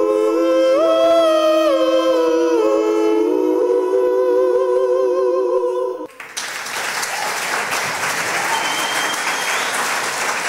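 Several voices singing a sustained close-harmony chord that shifts slowly from note to note. About six seconds in it cuts off abruptly and an audience applauding takes over.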